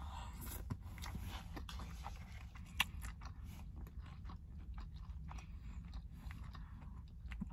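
A person chewing food with the mouth, a run of small irregular crunches and wet clicks, one sharper crunch about three seconds in.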